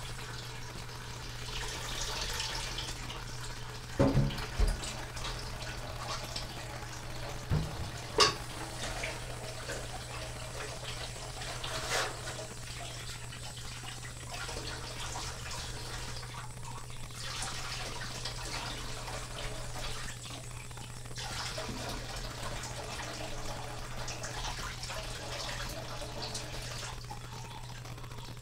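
Kitchen tap running into a sink as a steady hiss, with a few sharp knocks and clatters of things being handled, the loudest about four and eight seconds in. A steady low hum runs underneath.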